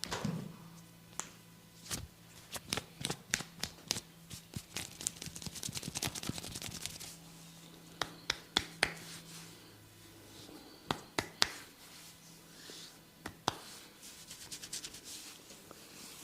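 A barber's fingers scratching and rubbing through a man's hair and scalp in a head massage: a dense run of quick crackling scratches, then a few separate sharp clicks and taps.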